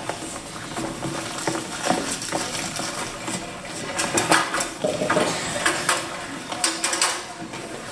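Irregular clattering clicks and knocks, scattered through and bunching up about four to five seconds in and again near seven seconds.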